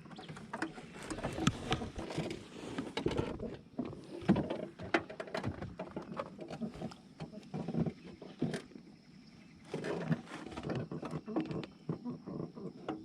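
Irregular knocks, taps and rustling of handling noise in a small fishing boat, with a quieter lull about two-thirds of the way through.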